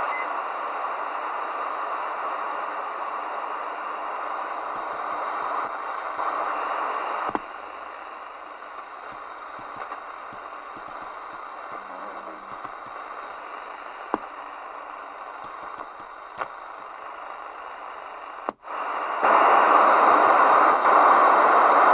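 Midland Alan 8001 CB radio speaker hissing with band static between transmissions. The hiss drops to a lower level about a third of the way in, with scattered crackles and clicks, then returns as a much louder rush near the end.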